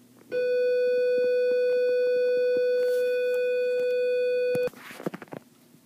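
School bell sounding as one steady electronic tone that comes in about half a second in, holds for about four seconds and cuts off suddenly.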